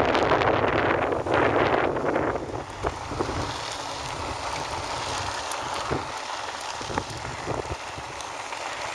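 Wind buffeting the handheld camera's microphone while riding the electric bike. The rush is loud for the first two seconds or so, then drops to a softer rush with a few light knocks.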